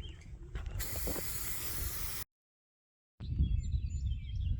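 Aerosol spray-paint can fitted with a snap-on trigger handle, spraying in a long hiss that stops abruptly a little past halfway. After a second of silence, an outdoor background follows with birds chirping.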